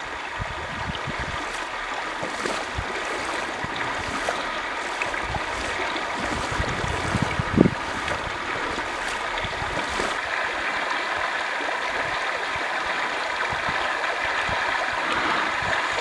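Shallow river running steadily over gravel, with a single short knock about halfway through.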